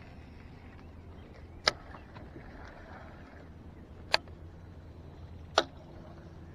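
Sounds aboard a small fishing boat: a steady low hum with three sharp clicks or knocks, each a second and a half to two and a half seconds apart.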